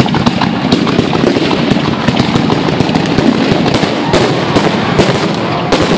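Fireworks display: a dense, continuous barrage of aerial shells bursting, with many sharp bangs and crackles overlapping. It swells suddenly right at the start after a brief lull.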